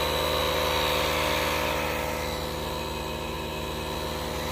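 Dewalt and Milwaukee M12 cordless tire inflators running together, their small piston pumps chattering steadily as they pump up car tires.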